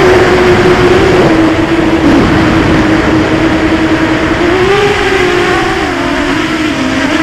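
Eachine Tyro129 quadcopter's brushless motors and propellers, recorded by the camera on board: a steady buzzing tone that follows the throttle, rising briefly just past halfway and dropping lower near the end, over a heavy rush of air noise.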